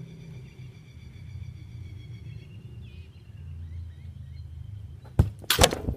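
A soccer ball kicked hard about five seconds in, with a sharp knock, and a moment later a louder rushing hit as the ball strikes the goal net close to the microphone.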